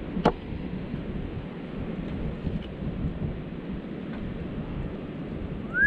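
Steady wind rumbling and buffeting on the microphone on an open beach, with a single sharp click about a quarter second in. A high whistled note begins right at the end.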